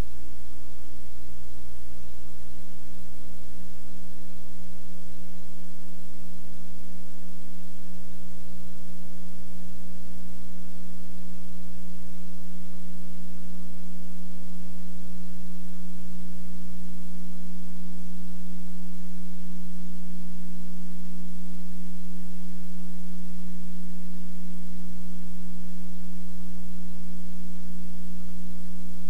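Steady electrical hum on a blank stretch of videotape: a loud, unchanging low tone with fainter higher tones above it.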